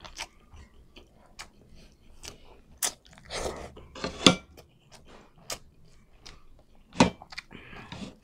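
A man chewing a mouthful of rice and beef, with scattered wet clicks and smacks; two longer noisy bursts come about three to four and a half seconds in, and a sharp click about seven seconds in.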